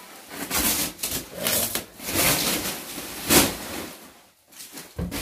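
Thin plastic wrapping sheet rustling and crinkling as it is pulled off a sofa and bunched up, in irregular bursts, with the sharpest crackle a little over three seconds in.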